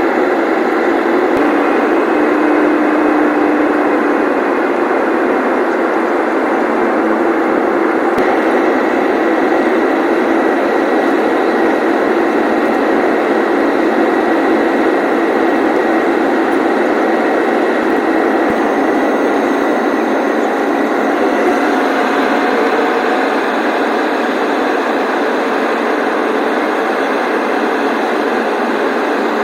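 Steady cabin noise inside an Airbus A321-200 airliner: engine and airflow rush with a faint, steady whine.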